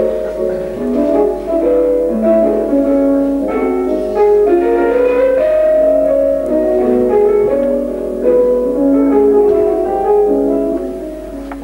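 Instrumental music led by piano, chords of held notes, getting quieter near the end.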